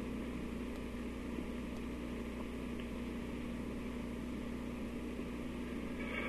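Steady hiss with a low, even hum from an old 1957 recording's background noise. Nothing else stands out.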